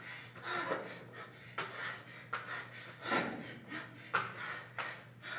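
A man breathing hard and fast while doing burpees: repeated loud panting breaths, with a sharp thud about four seconds in as he drops to the floor.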